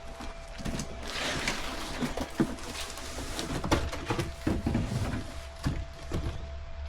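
Irregular handling noises: a string of knocks, clicks and rustles from parts being moved about, over a faint steady hum.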